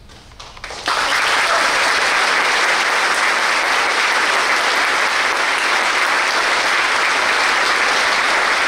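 Audience applauding: a few scattered claps, then full applause breaking out about a second in and holding steady.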